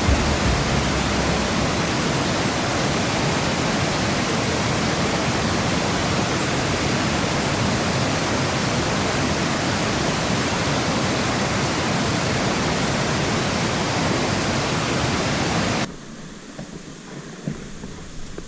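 Steady rushing water, an even hiss with no pauses. It cuts off suddenly near the end, leaving a much quieter outdoor background.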